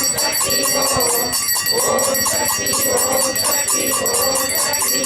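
A bell rung rapidly and continuously, over a group of voices chanting in drawn-out, wavering phrases.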